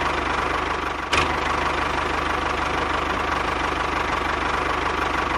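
Tractor engine running steadily with a fast, even chug, with one short knock about a second in.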